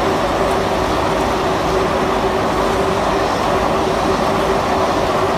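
QST3000D chain saw attachment on a Caterpillar 432F2 backhoe loader running, together with the backhoe's engine: a loud, steady machine noise with a constant whine.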